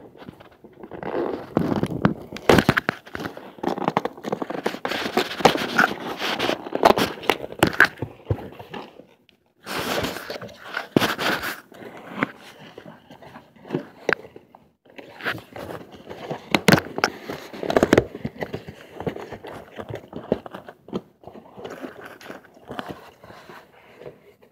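Cardboard shipping box being opened by hand: packing tape tearing, flaps scraping, and cardboard and plastic packing crinkling, in irregular bursts with short pauses between.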